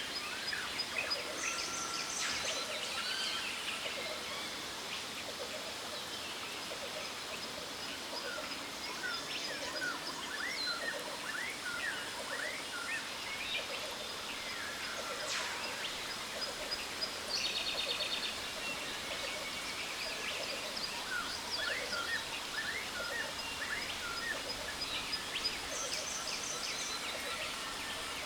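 Tropical jungle ambience: a steady rush of falling water, with birds calling over it in repeated clusters of short rising chirps and a few buzzy trills, and a thin steady high-pitched tone.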